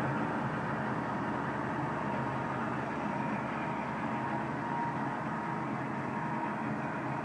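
Wells Wellcutt secondary stone saw's large water-cooled circular blade cutting through a stone block: a steady grinding rush over a low, even machine hum.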